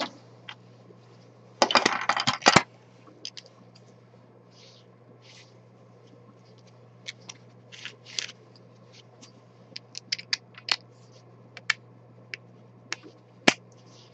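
Small 3D-printed plastic worm gear and handle parts handled on a tabletop: a short scraping rattle about two seconds in, then scattered light clicks as the pieces are turned and fitted together, over a steady low hum.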